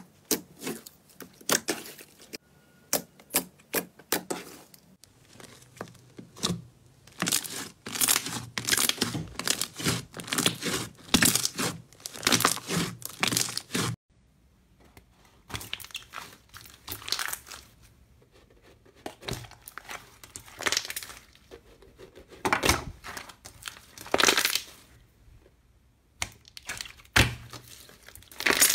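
Hands pressing and squishing slime, giving irregular bursts of sticky crackles and pops. The crackling is dense through the first half, breaks off suddenly about halfway, then returns as sparser, separate bursts.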